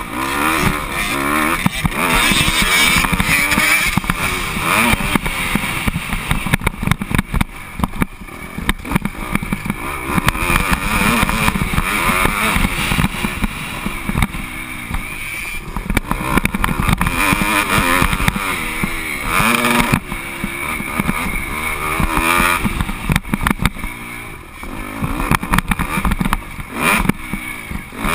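Motocross bike engine revving hard, its pitch climbing and dropping again and again as the rider works the throttle and shifts gears around the dirt track, with heavy wind noise on the helmet-camera microphone. The engine briefly falls off throttle near the end.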